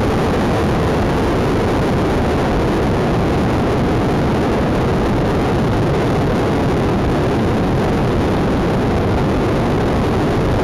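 Steady rush of wind over an action camera's microphone on a sport motorcycle riding at speed, mixed with the bike's running and road noise; it stays even with no revving or gear changes.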